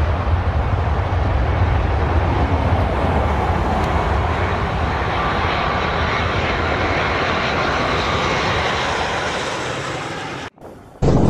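Twin-engine jet airliner on final approach to land, its engines giving a steady noise with a deep rumble underneath. It cuts off abruptly near the end.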